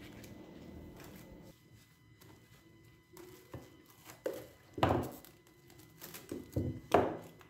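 Plastic cling film being pulled from its roll and crinkled over a glass bowl: a few short rustles and knocks starting about three seconds in, the loudest near the middle and near the end.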